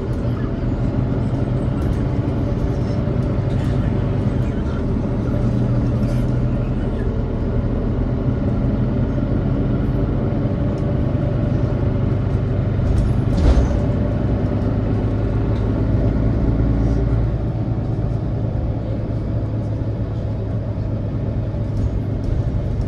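Mercedes-Benz Citaro O530 city bus heard from inside the cabin, its engine running with a steady hum. There is one brief sharp noise about halfway through, and the deepest part of the engine note drops away about three quarters of the way through.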